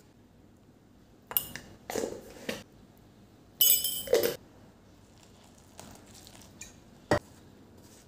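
A spoon clinking and scraping against a mixing bowl in two short bursts as spice powders are tipped onto onions and gram flour, then a single sharp knock near the end.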